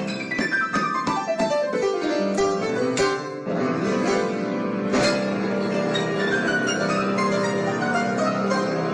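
Instrumental music: a quick run of notes falling in pitch over about the first two seconds, then steady notes and chords.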